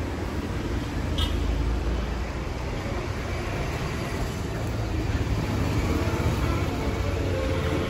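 Steady street traffic noise, a low rumble of passing vehicles, with a short high tick about a second in.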